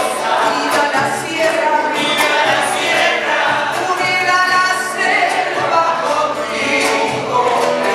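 Music with a choir singing.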